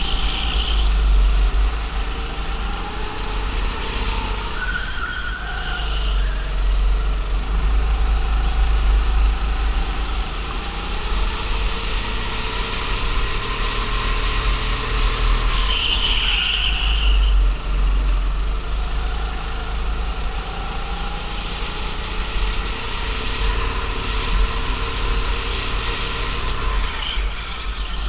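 Go-kart engine running under the driver, its pitch rising and falling as it speeds up along the straights and slows for the corners, over a heavy low rumble.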